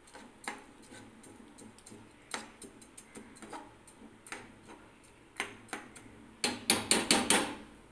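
A spatula clicking and scraping against a nonstick frying pan as watery khichdi is stirred: scattered light knocks, then a quick run of louder knocks near the end.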